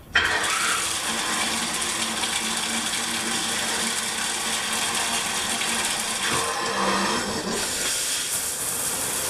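Water turned on suddenly and spraying steadily from a newly installed handheld spray shower head onto tile and the tub, an even hiss. The shower is being run to test the new install.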